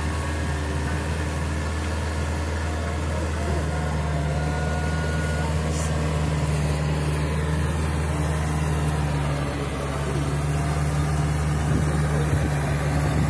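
Tractor diesel engine running steadily under load while working a flooded rice paddy, a low steady hum whose pitch and load shift about a third of the way in and again past halfway as it manoeuvres.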